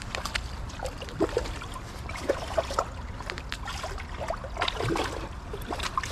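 Hooked rainbow trout splashing in shallow water at the stream edge as it is brought to the net, a string of irregular short splashes over running stream water and a steady low rumble.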